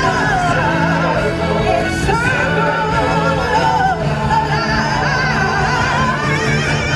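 Music with singing: a voice holding long, wavering notes over a steady sustained accompaniment.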